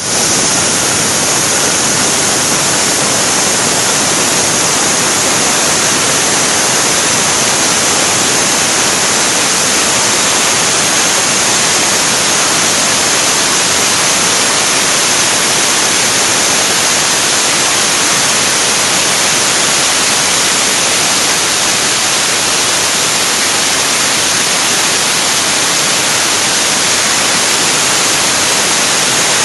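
MV-2000 band sawmill with its 5.5 kW electric motor running, a loud steady hiss with no breaks.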